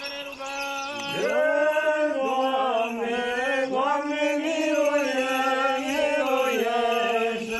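Eastern Orthodox liturgical chant: a voice holding long, drawn-out notes that slide between pitches, growing louder about a second in.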